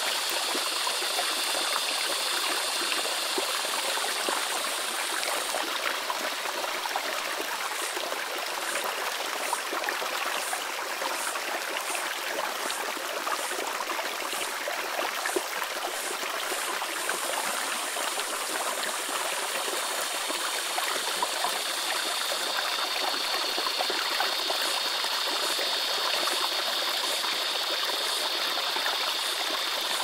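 Creek water rushing steadily over rocky cascades. Above it, cicadas and other insects buzz high-pitched: a steady buzz that comes and goes, and a chirp that pulses a little faster than once a second between the buzzing spells.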